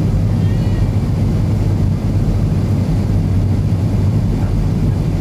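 Steady cabin drone of an Avro RJ100 airliner on approach, heard from a window seat: its four Honeywell LF507 turbofan engines running with the rush of air over the flap-extended wing, a low hum under a wide even rush.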